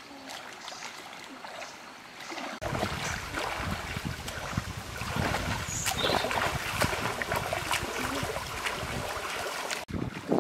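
Water splashing and sloshing as a person wades through a river, beginning abruptly about two and a half seconds in after a quieter stretch.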